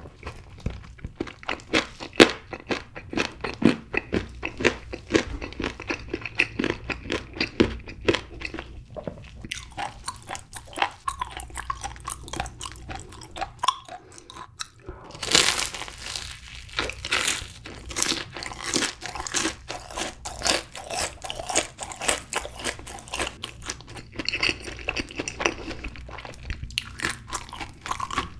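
Close-miked chewing of glazed yangnyeom fried chicken and a Cheetos-crusted corn dog: a steady run of small crisp crunches, with a louder crunchy bite about halfway through.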